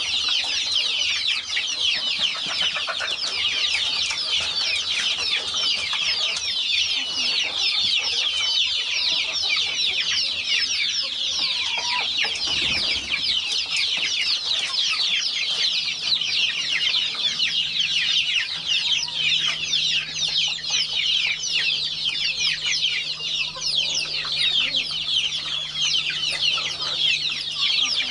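Chickens calling continuously, a dense chorus of many short, high-pitched calls overlapping without a break.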